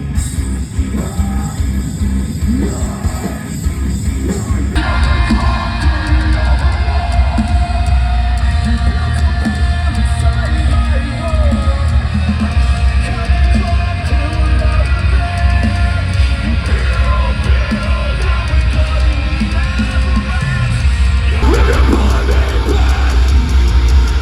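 Heavy rock band playing loud through a festival sound system, with distorted guitars, drums, heavy bass and yelled vocals. The music changes abruptly about five seconds in and again near the end.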